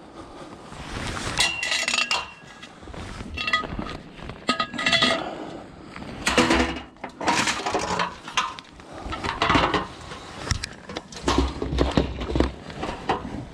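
Scrap metal pieces clanking and clinking against each other as they are handled, in repeated clatters, some with short ringing notes.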